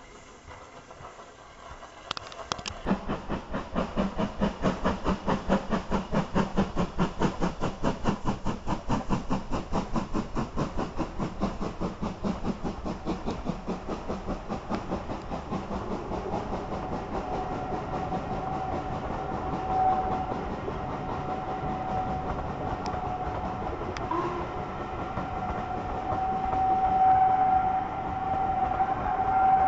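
Steam train passing: a fast, even beat of locomotive exhaust and running gear starts about two seconds in, then the coaches roll by. A steady high-pitched squeal joins in about halfway and grows louder near the end.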